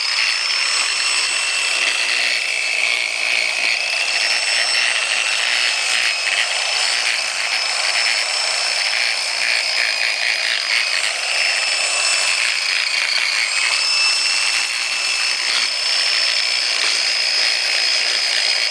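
A powered machine tool running and cutting into a Spyder paintball marker body: a steady high whine with a continuous scraping chatter as the cutter works the metal.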